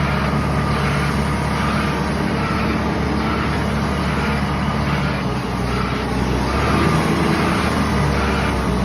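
Heavy equipment's diesel engine running steadily under load while the machine moves, with a backup alarm beeping about once a second.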